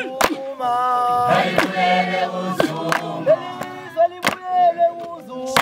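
A group of men singing a Zulu chant-song together, cut through by about five loud, sharp beats, roughly one every second or so.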